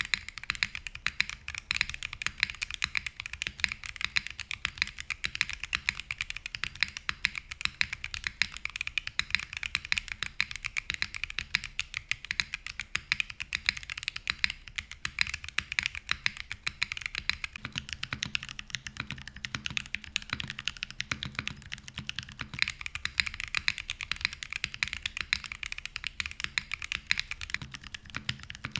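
Continuous fast typing on a mechanical keyboard fitted with Akko Creamy Purple Pro tactile switches in a copper plate. About 17 seconds in the sound changes, taking on a deeper bottom end, as typing moves to Gateron Quinn tactile switches for comparison.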